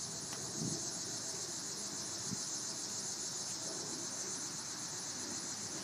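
Steady high-pitched insect chorus, a continuous shrill drone with a faint fast pulsing.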